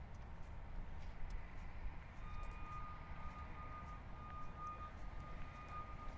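Roadside ambience: a steady low rumble of distant traffic, with a faint, thin high tone held from about two seconds in.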